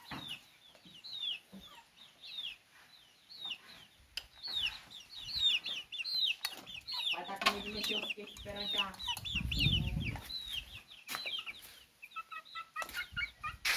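Young chickens peeping over and over, short high calls that fall in pitch, several a second, with a lower cluck-like call partway through. A brief low rumble comes near the middle.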